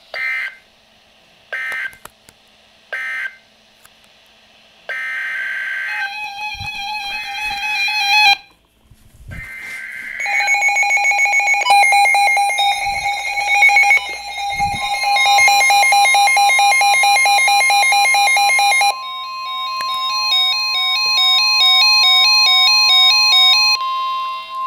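Emergency Alert System tones: three short bursts of data tones, then a long run of electronic beeping, stepping and warbling tones with a steady high alert tone beneath them from the middle on.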